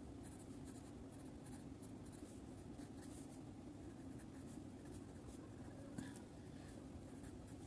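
Faint scratching of a wax crayon rubbed over paper in repeated strokes, over a steady low hum.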